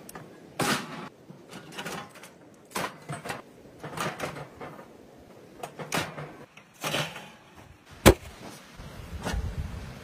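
Knocks, clatter and clicks of a portable gas grill being handled and its folding frame set up, a handful of separate knocks spread about a second apart, with one sharp click about eight seconds in the loudest.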